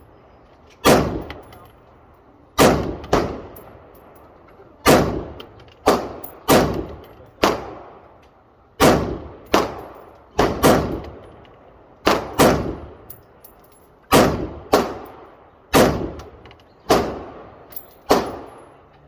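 AR-15 rifle fired semi-automatically, one shot at a time: about eighteen shots at an uneven pace, sometimes two in quick succession, each with a ringing decay.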